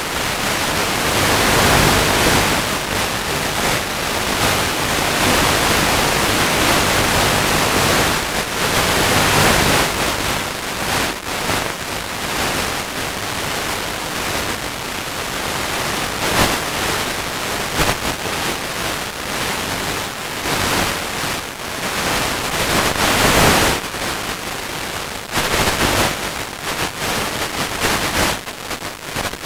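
Loud, steady hiss of radio static from an analog FPV video downlink's audio channel. From about ten seconds in, it flutters and breaks up in quick dropouts as the signal wavers.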